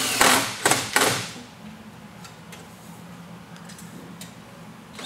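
Cordless drill driving a self-drilling screw through a slat hanger into a rolling shutter's axle: the steady run stops, then three short bursts in the first second as the screw seats, a few faint clicks, and one more short burst near the end.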